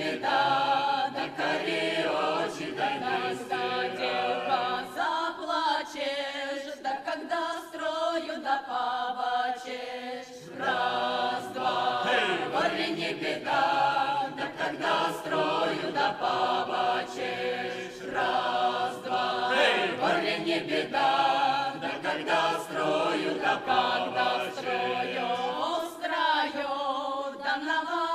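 Folk choir of women's and men's voices singing a Russian folk song together in phrases, with a short breath pause about ten seconds in.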